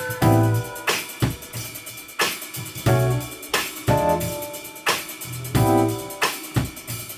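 Live band playing a groove: drum kit beat with bass drum and snare, a bass line, and repeated keyboard chords.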